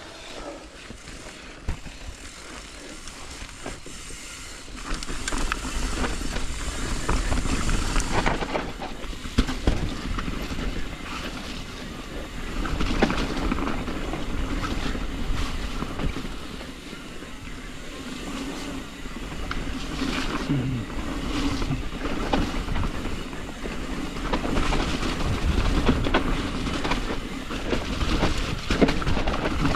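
Hardtail mountain bike riding down a dirt singletrack: tyres rumbling over the ground with frequent clatter and rattling knocks from the bike, getting louder about five seconds in as it picks up speed.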